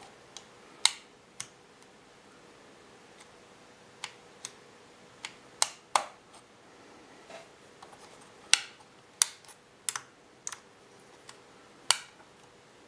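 Switches on a Turnigy 9XR radio transmitter being flipped one after another. Sharp plastic clicks come at uneven intervals, about eighteen in all, bunched more thickly in the second half, as each switch is tried in turn to check that it registers.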